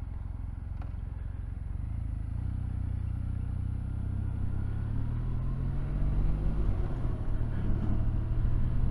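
Kawasaki W800's air-cooled parallel-twin engine running under way, heard from the rider's position. Its note climbs slightly over several seconds, breaks briefly about seven seconds in, then settles into a steady note again.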